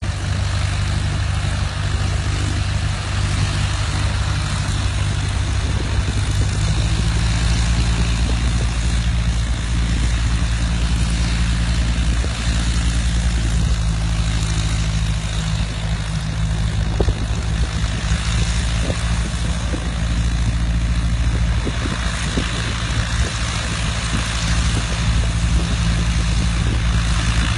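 An engine running steadily at a constant speed, its low hum growing stronger about six seconds in, under an even background hiss.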